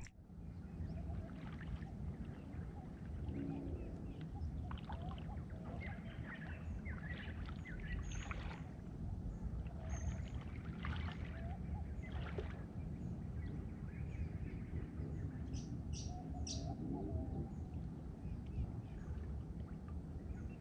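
Shallow water lapping and sloshing against a half-submerged action camera: a steady low rumble with scattered faint crackles and ticks, and a few faint bird chirps.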